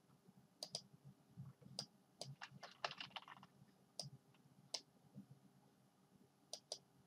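Computer mouse clicking, mostly in quick pairs, with a short run of clicks about three seconds in.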